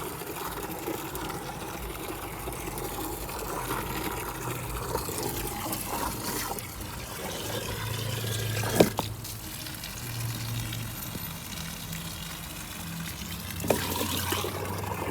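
Water running and pouring steadily, with two sharp knocks, the louder about nine seconds in and another near the end.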